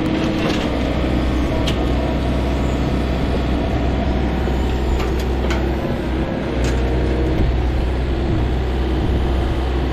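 Excavator's diesel engine running steadily at a loud, low drone, with a few short sharp clicks and knocks over it.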